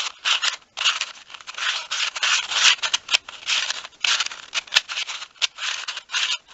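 3D-printed Square-1 speed cube turned rapidly through the parity algorithm: a quick string of plastic layers scraping and clacking as they turn and slice, several turns a second, with a few sharper clicks.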